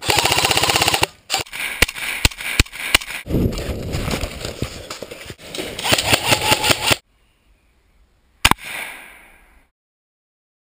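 A rapid full-auto burst of gunfire, about twenty shots a second, followed by single shots and more mixed firing that stops abruptly. Near the end comes one loud bang with a long, fading echo.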